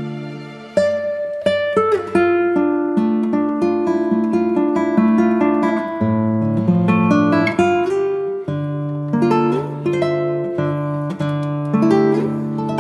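Background music: acoustic guitar, plucked and strummed, with a new phrase starting about a second in.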